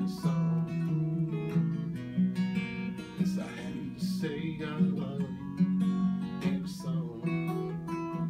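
Two acoustic guitars playing chords together in a song.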